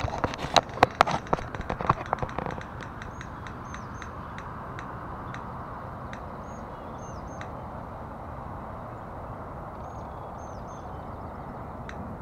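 Spinning prize wheel in a phone app ticking past its pegs: fast, loud clicks at first that slow down and space out as the wheel coasts to a stop. Steady outdoor background hiss underneath.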